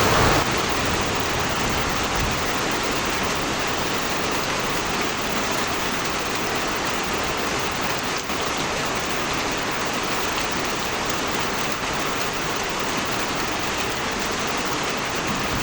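Steady rain falling, a dense even hiss of rain on surfaces.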